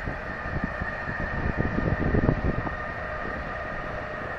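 Distant electric freight train carrying lorry trailers rolling along the line: a steady rumble of wheels on rails with a thin, steady high whine over it. Wind buffets the microphone with low thumps.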